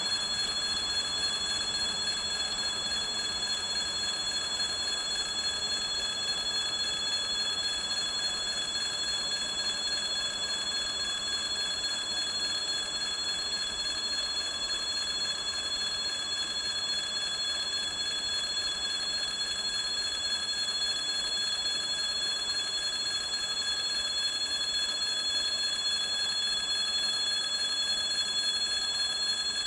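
Steady, unchanging high-pitched ringing tones over the faint sound of a freight train of tank cars rolling away.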